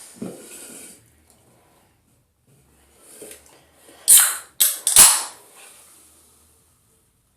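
A person burping: a short burp just after the start, then a quick cluster of loud, abrupt burps about four seconds in.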